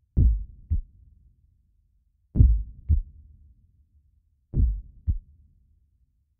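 Heartbeat sound effect: three slow, deep double thumps (lub-dub), each pair a little over two seconds after the last.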